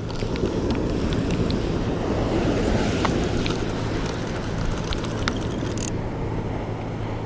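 Wind buffeting the microphone over breaking surf, with scattered faint ticks from a spinning reel as its handle is cranked to retrieve a cast lure.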